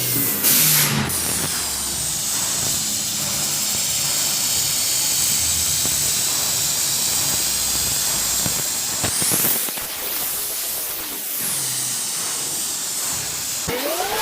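Steady, loud hissing noise, with two brief swooping sounds about two-thirds of the way through.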